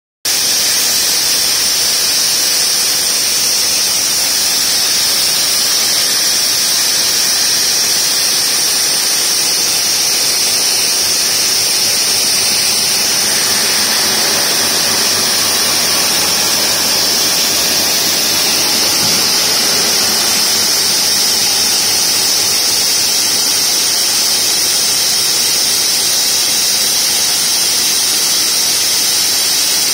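Multiblade block cutter's large diamond saw blades cutting through a stone block under water spray: a steady, high-pitched whine over the hiss of spray.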